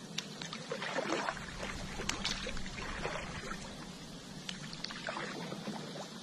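Kayak paddle strokes: the blade dipping and pulling through the water in repeated splashy swishes, with dripping and a few sharp clicks.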